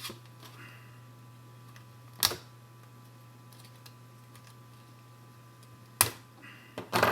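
A few sharp clicks and snaps as the device is cut free of its glued packaging: one about two seconds in, another near six seconds, and a quick cluster at the end. A steady low hum runs underneath.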